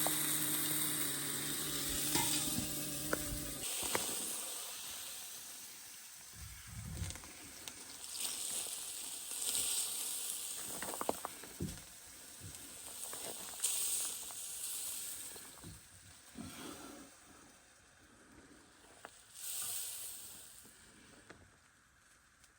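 Steak searing in a skillet, a sizzle that swells and fades several times. A low steady hum runs underneath and stops about three and a half seconds in.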